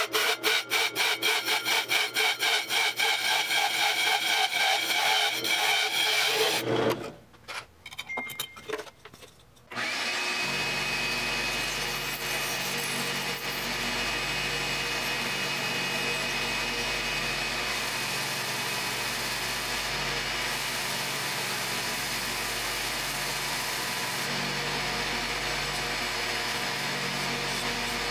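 A hole saw in a drill press cuts through cedar, with a fast, even chatter of about five strokes a second. After a pause of a few seconds, a WEN 4-by-36-inch belt and disc sander runs steadily while a cedar disc is sanded against the disc.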